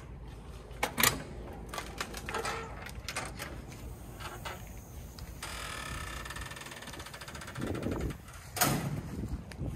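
Aluminum screen door of a screened porch clacking about a second in, followed by a run of small clicks and taps. A steady hum runs through the middle few seconds, and another sharp click comes near the end.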